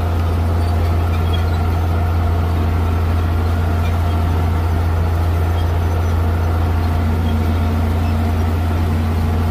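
A tractor's diesel engine running at a steady, even drone, heard from inside the cab while it pulls a corn planter through the field.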